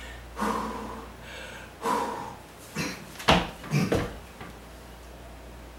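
Two strained grunts of a man lifting a heavy porcelain toilet, then a few sharp knocks, the loudest a little over three seconds in, as the toilet is lowered and bumps down over its floor bolts.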